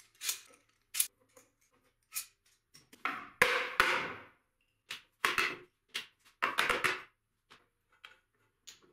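Handling noise of steel bar clamps being loosened, slid off and set down on a workbench, and wooden pegs being pulled from wooden panel-clamp bars. It comes as scattered clicks and knocks, with several short scraping clatters about three to seven seconds in, the longest at about three to four seconds.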